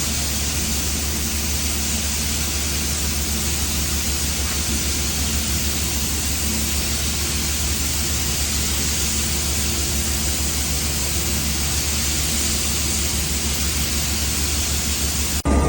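Pressure washer spraying: a steady hiss of high-pressure water with a low drone underneath. Near the end it cuts abruptly to a louder machine sound with a steady tone.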